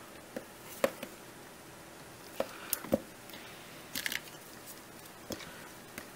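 Thin clear plastic deli cups handled with vinyl-gloved hands and set down on a marble board: scattered sharp light clicks and taps with a little plastic crinkle, the loudest about one and three seconds in, and a quick run of clicks about four seconds in.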